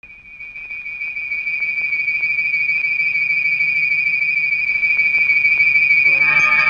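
A single high, steady whistle-like tone with a slight waver, fading in over the first second and holding, the opening sound of a soundtrack. About six seconds in, chime-like notes at several pitches join it.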